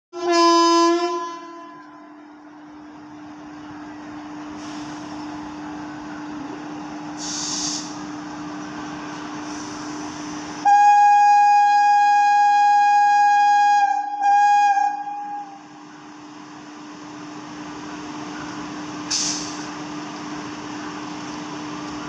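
Horn of a WAG-5 electric locomotive sounding: a short blast at the start, then a long loud blast about eleven seconds in and a short one right after it. A steady low hum carries on between the blasts.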